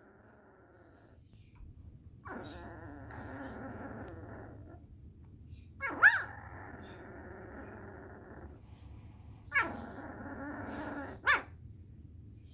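A puppy grumbling and whining as she settles off to sleep: three long, drawn-out grumbles starting about two, six and nine and a half seconds in. The second and third open with a sharp high yelp that falls away, and the loudest comes about six seconds in.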